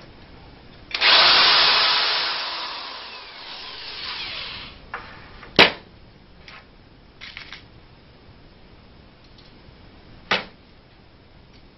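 Electric drill boring a pilot hole through an angle bracket into a pine 2x4. The motor starts about a second in, then winds down over a few seconds with a falling pitch. A sharp knock follows, then a few light clicks and a second knock near the end.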